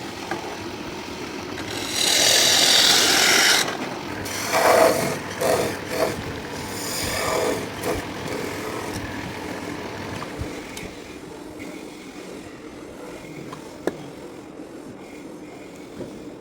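Abrasive scraping on wood: a loud stretch of rasping about two seconds in, a run of shorter strokes after it, then fainter rubbing.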